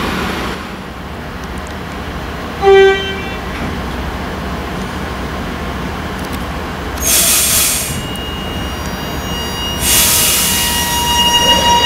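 High Capacity Metro Train at a platform: one short, loud horn toot about three seconds in, and two hisses of air around seven and ten seconds. Near the end a whine of several steady tones rises over the low rumble as the electric train starts to move.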